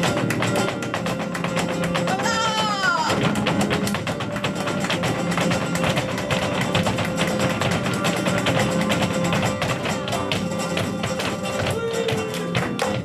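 Flamenco tangos: guitar playing under rapid zapateado footwork, the dancers' shoe heels and toes striking the floor in dense quick strikes. A voice calls out briefly about two seconds in.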